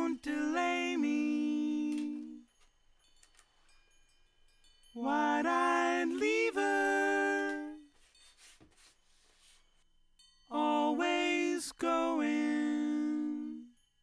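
Background music: three short melodic phrases, each followed by a pause of a couple of seconds.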